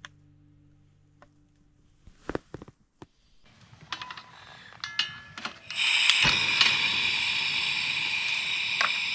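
Clicks and clatter of handling, then from about six seconds in a loud, steady hiss of breakfast cooking on a camp stove.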